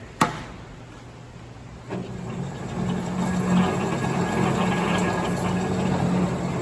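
A single sharp click, then about two seconds in the Marvel Series 8 MkII vertical band saw starts on its variable frequency drive, its motor, pulleys and blade coming up to speed over about a second and then running steadily with a low hum.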